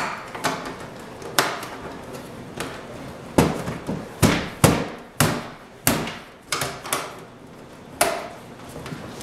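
Irregular plastic knocks and clatter as a small plastic cover piece is worked into place at the back of a blender sound enclosure, around the power cord: about a dozen sharp knocks, the loudest bunched in the middle.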